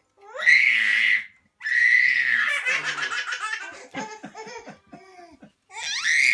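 Baby laughing: two long, high squeals of laughter, then a run of quick, rhythmic giggles, and another squeal near the end.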